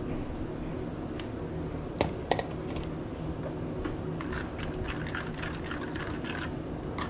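A kitchen utensil knocking against a mixing bowl a few times about two seconds in, then a couple of seconds of quick clicking and scraping from about four seconds in, as mashed banana is added to the wet batter mix. A steady low hum runs underneath.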